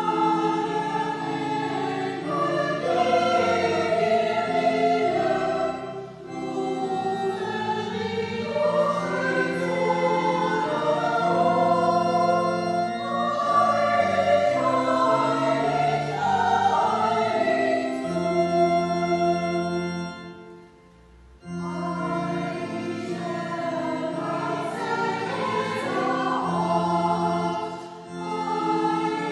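Small church choir singing with keyboard accompaniment in a reverberant church, held low notes under the voices. The music breaks off briefly between phrases about two-thirds of the way through, then resumes.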